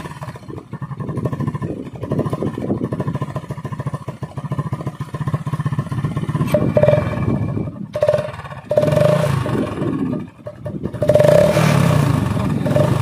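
A Hero Splendor 100 cc motorcycle's single-cylinder engine runs with an empty aluminium drink can wired over the silencer outlet, a home-made exhaust modification meant to mimic a KTM Duke. It idles with a rapid, even exhaust putter, then is revved briefly three times in the second half, each rev adding a steady humming tone.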